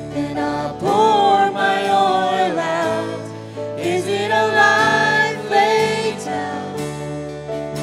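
Worship song: voices singing a drawn-out melody without clear words over sustained instrumental accompaniment.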